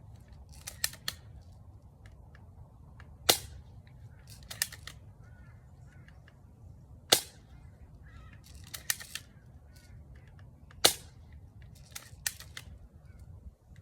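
Spring-piston BB gun fired three times, a sharp crack every three to four seconds, with quieter clicks and knocks between the shots.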